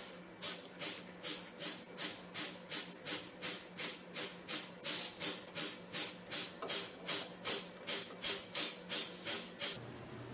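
Compressed air and water spitting from the opened drain valve under the water separator bowl of a Festo filter-regulator-lubricator, in short hissing spurts about two or three a second: the separator being drained with line pressure still on.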